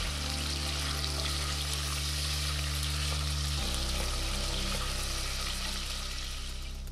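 Diced pork fat sizzling as it fries and renders into cracklings, the pieces stirred now and then with a wooden spatula. Soft background music with steady low notes runs underneath.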